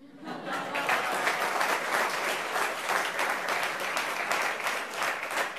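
Studio audience applauding, many people clapping together; it swells in over the first half second and then holds steady.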